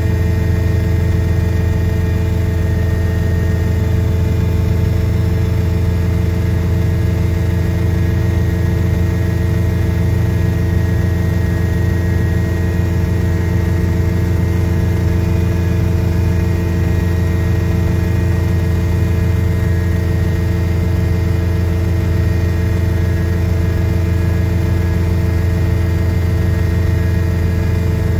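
Small petrol engine driving a propeller, running at a steady, unchanging speed with a constant drone.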